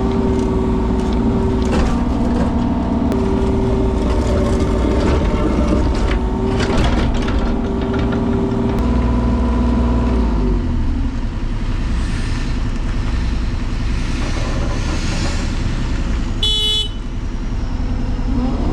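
Construction machine engine running under load, its pitch dropping about ten seconds in as it throttles down, with metal clanks early on and a short high beep near the end.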